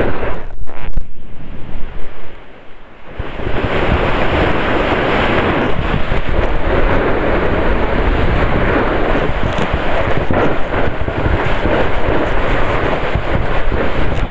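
Wind buffeting a microphone mounted on the nose of a snowboard, mixed with the rush and scrape of the board sliding over snow. It dips quieter briefly about two seconds in, then stays loud and steady.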